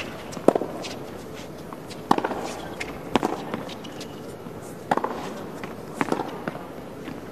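Tennis rally: rackets striking the ball in sharp pops, a loud hit about every one to one and a half seconds, with fainter clicks between them.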